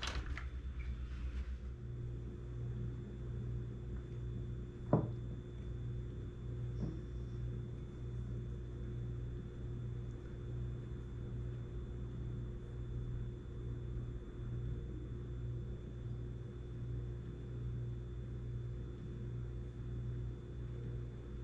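A steady low mechanical hum, with one sharp knock about five seconds in and a fainter click a couple of seconds later.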